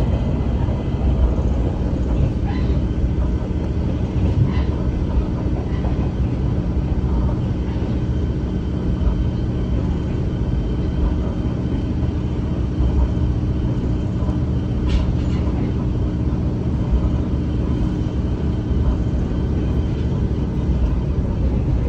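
Aizu Railway AIZU Mount Express diesel railcar running, heard inside the cabin: a steady low engine drone and wheel-on-rail rumble, with a few faint clicks from the track.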